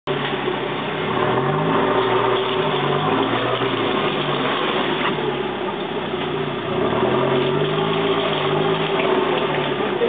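Four-wheel-drive vehicle's engine running while driving over a muddy dirt track, its revs rising and falling several times, over a steady rushing noise of the drive.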